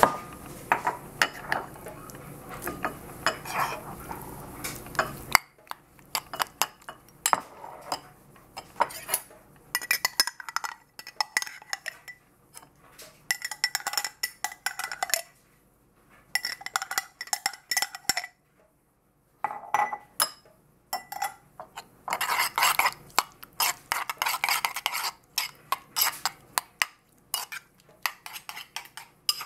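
Metal spoon scraping and clinking against ceramic bowls as yogurt with cucumber is scooped from a small bowl into a larger one and stirred: clusters of clinks and scrapes with short pauses.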